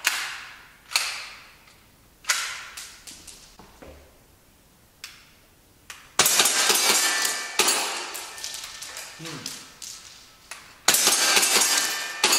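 Tokyo Marui S&W M&P9 gas blowback airsoft pistol: a few separate sharp clacks in the first few seconds, then from about six seconds in a rapid string of shots with the slide cycling and BBs striking the plate targets with a metallic clink and ring. After a short lull a second fast string starts near the end.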